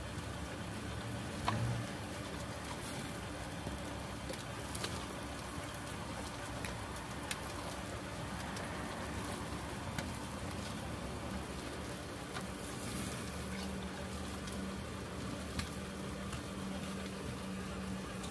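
Yakitori chicken skewers sizzling on a street-stall grill: a steady hiss with scattered light clicks.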